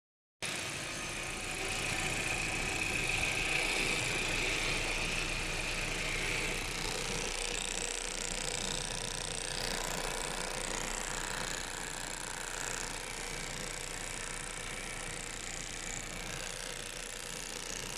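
Audi A4 B5's 1.8-litre 20-valve ADR four-cylinder engine running with an extraneous mechanical noise, heard with the connector of the N80 evaporative purge valve unplugged.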